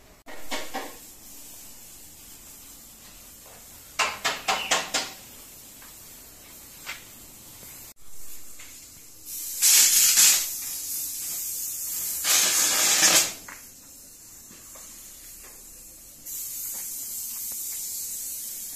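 Oxy-acetylene welding torch hissing, loudest in two spells about ten and twelve seconds in, then steadily near the end. A quick run of about five taps about four seconds in.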